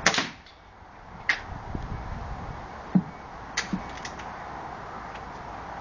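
A .22 air rifle fired once, a sharp crack right at the start. A smaller sharp tick follows about a second later, then a low knock and a few quieter clicks around three to four seconds in.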